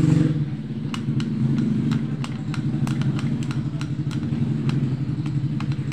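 An engine running steadily with a fast even pulse, and light sharp clicks scattered through it.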